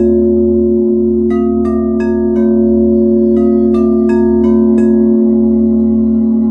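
Crystal singing bowls ringing in a steady, sustained drone. Over it come two quick runs of bright struck chime notes, four or five strikes each, stepping down in pitch, about one and three seconds in.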